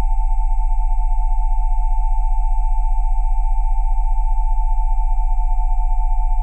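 Synthesized Rife frequency tones: steady pure sine tones at 727, 787 and 880 Hz sounding together over a deep 20 Hz tone, with a fast, even wavering in loudness and no change throughout.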